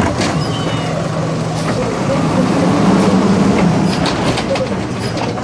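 Recycling truck's diesel engine revving up while its automated arm lifts and empties a recycling cart, with clattering knocks from the dump. The engine's pitch rises soon after the start, peaks about three seconds in, then eases.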